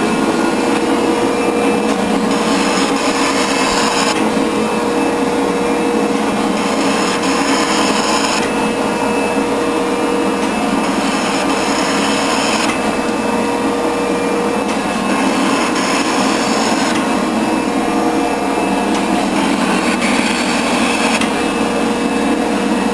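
24-inch Rockford hydraulic shaper cutting metal: a steady machine drone with a constant hum, the sound changing about every four seconds as the ram makes its cutting stroke and returns.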